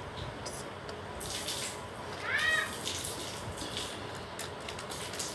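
Clear plastic jewellery sleeves crinkling and rustling as they are handled, in short bursts, with a brief high-pitched call about two and a half seconds in.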